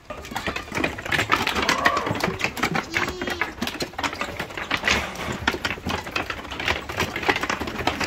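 A crowded pen of young goats milling about: a dense, rapid clatter of small clicks and knocks, with a couple of faint bleats.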